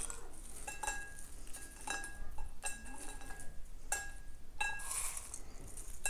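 Light clinks of a small glass bowl as crisp bacon pieces are picked out of it by hand, about five clinks, each with a short ringing note.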